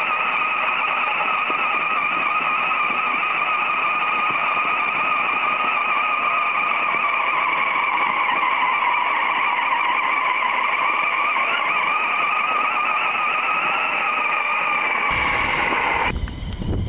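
RC monster truck's electric drive motors and gears whining steadily under load as it tows a sled, the pitch wavering slightly with speed. Near the end this gives way to a low wind rumble on the microphone.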